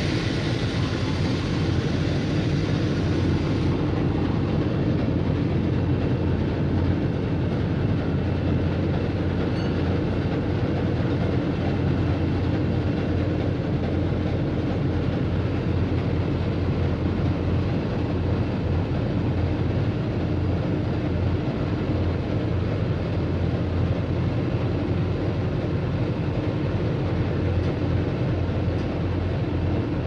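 German U-boat diesel engines running steadily: a low, even rumble with a constant hum.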